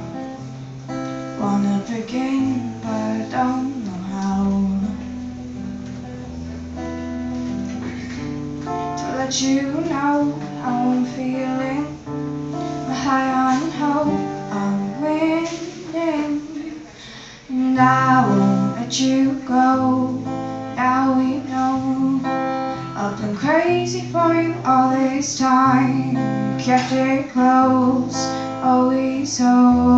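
Live acoustic music: a guitar strummed and picked, with a woman singing over it.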